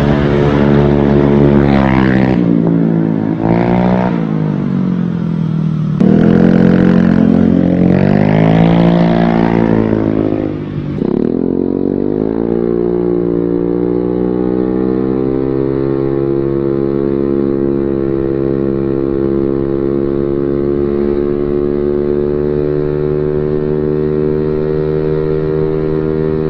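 Honda Beat scooter's stock engine through an aftermarket racing exhaust. For the first ten seconds or so it rises and falls in pitch as the scooter revs and rides by, then after a brief dip it runs steadily under way, its pitch climbing slowly as it gathers speed.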